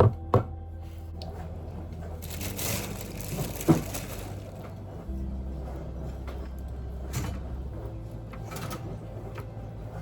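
Background music with sustained low notes that change pitch twice, over household clatter: sharp knocks at the start and again partway through, and a brief rushing hiss in the middle.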